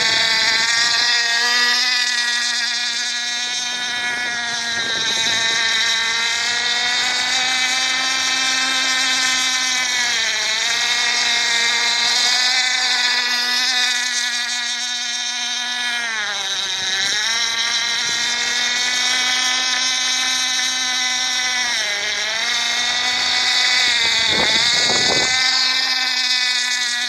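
Radio-controlled F1 racing boat's KB 46 model outboard engine running flat out with a high, steady whine. The pitch drops briefly about four times before climbing back, the deepest drop near the end.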